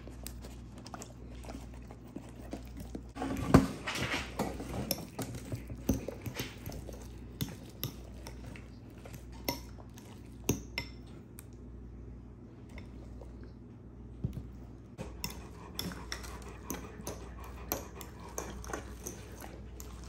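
Metal spoon scraping and clinking against a glass bowl as mashed egg yolk is stirred together with yogurt. Clinks come throughout, busiest and loudest about three to five seconds in, and sparser in the middle.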